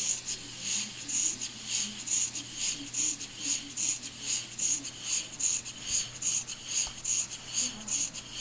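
Model Maudslay oscillating marine engine running steadily, its exhaust hissing in even puffs about twice a second.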